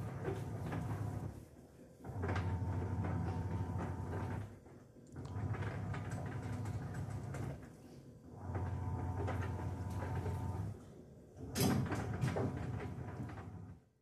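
Sharp ES-F950P-GY single-tub top-loading washing machine agitating its wash load: the pulsator motor runs in two-second strokes with short pauses between them, five times. Each stroke carries a grinding, scraping rattle like a coin or bolt rubbing inside, the sign of a hard foreign object caught between the pulsator and the tub.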